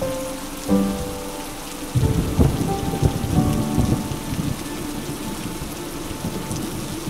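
Heavy rain falling steadily, with a low rumble of thunder from about two seconds in that lasts a couple of seconds and is the loudest part.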